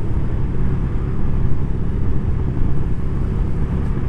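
Suzuki SV650S V-twin motorcycle running at steady road speed, heard from the rider's helmet with wind rushing over the microphone.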